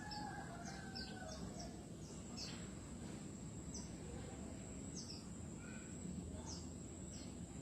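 Songbirds chirping in short, high, falling notes about once a second, with a few lower warbled calls near the start. A steady thin high whine and a low background rumble run underneath.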